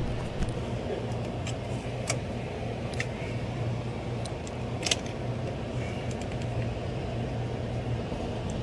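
Steady low machine hum with scattered light clicks and taps, the sharpest about five seconds in.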